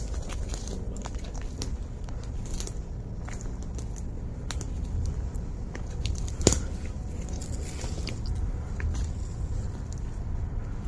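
Footsteps crunching over twigs and debris: scattered crackles and snaps over a steady low rumble, with one sharp, louder snap about six and a half seconds in.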